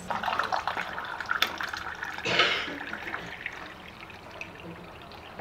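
Water running from a kitchen tap and splashing into a container, with small clinks, loudest in a short burst near the middle and then tapering off. The tap delivers water from a newly fitted defluoridation treatment system.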